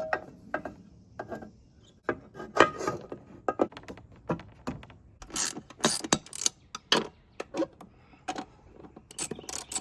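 Irregular metallic clinks, taps and knocks of hand tools and metal parts being handled during ATV repair work.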